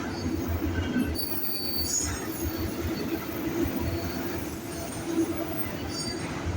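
BNSF freight train of autorack cars rolling past with a steady low rumble, and brief high-pitched wheel squeals at about a second in and again near the end.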